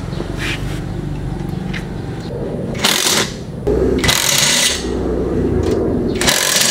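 Cordless drill driving the bolts that fasten the seat rails to a bucket seat, running in short whirring bursts: about three seconds in, again around four seconds, and just before the end.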